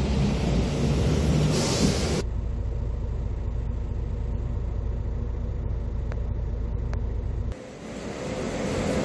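Steady low rumble of a shuttle bus's engine and road noise heard from inside the cabin. Before it there is a couple of seconds of busier street noise. After a sudden cut near the end, a quieter, even hum of a large building's interior takes over.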